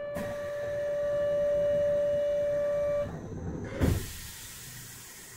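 Kyoto subway 20 series train's door buzzer sounding as one steady electric buzz, cutting off about three seconds in. Just before four seconds there is a thump from the doors, followed by a hiss.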